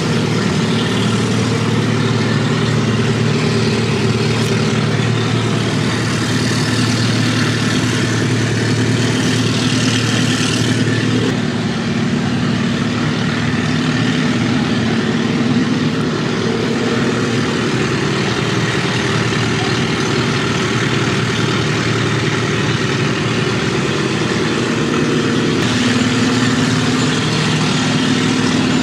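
1916 Waterloo Boy Model R tractor's two-cylinder kerosene engine idling steadily.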